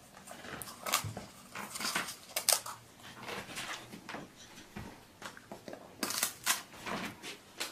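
A dog chewing a hand-fed treat, with plush toys rustling and shifting around it as it moves: a run of irregular short crunches and rustles.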